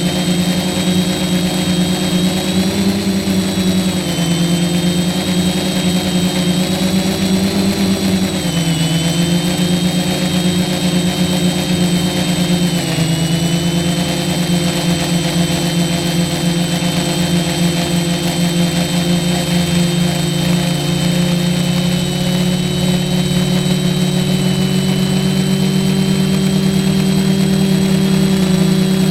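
F450 quadcopter's brushless motors and propellers running, a steady hum with a higher whine above it. The pitch dips and shifts several times in the first half as the throttle changes, then holds steady and rises slightly near the end.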